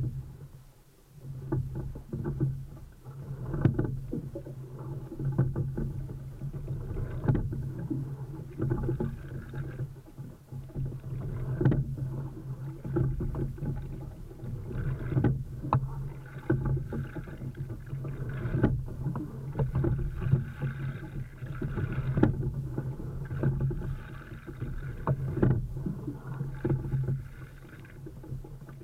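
Single scull being rowed at a steady, easy rate: a sharp knock from the oars in their gates about every three and a half seconds, with the boat surging and water rushing along the hull between strokes, heard from a camera mounted on the hull.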